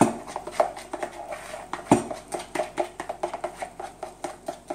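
Spoon beating a soft flour-and-water bakes batter in a plastic mixing bowl: a steady run of knocks and scrapes, about four a second, with two heavier knocks, one at the start and one about two seconds in.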